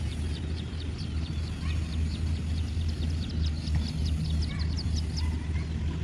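Rice combine harvester's engine running with a steady low drone, heard across the paddy field, while many birds chirp in quick, short, high calls over it.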